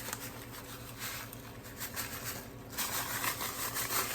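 Faint, irregular rustling and pattering of dry cornbread stuffing mix being handled and spread over the dish, over a steady low hum.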